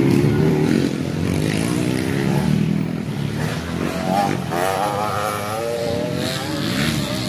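Dirt bike engines revving as motocross bikes race past on a dirt track, the engine note rising and falling; one bike's pitch climbs steadily as it accelerates about halfway through.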